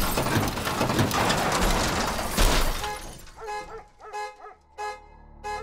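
A towed car tears off a tow truck's wheel lift and rolls onto its roof: a loud crash of impacts, scraping metal and breaking glass that dies away about three seconds in. It is followed by a run of short, even-pitched tones repeating about twice a second.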